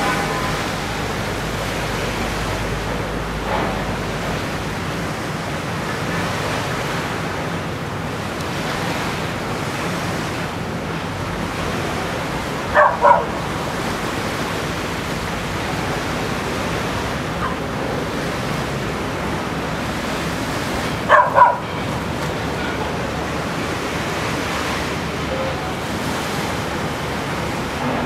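Steady wash of small waves in shallow surf, with a dog barking: a quick double bark about halfway through and another near the end.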